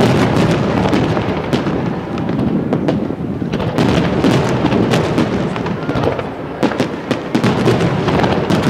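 Aerial firework shells going off in a dense, continuous volley: many sharp bangs and cracks overlapping without a break.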